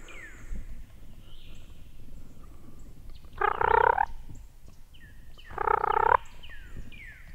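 Wild turkey gobblers gobbling twice, about two seconds apart, each a loud rattling gobble under a second long.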